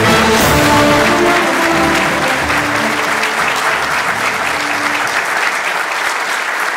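Audience applauding over instrumental music; the music's held notes fade out after the first few seconds while the clapping goes on.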